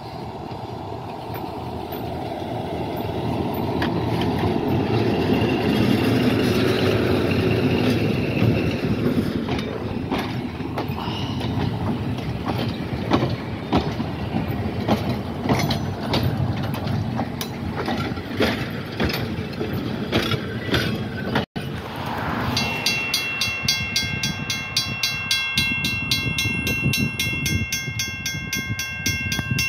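Diesel switcher locomotive approaching and passing close by, its engine getting louder as it nears, then steel passenger coaches rolling past with wheels clicking over the rail joints. After a cut about two-thirds through, a steady chord of high tones holds over the scene.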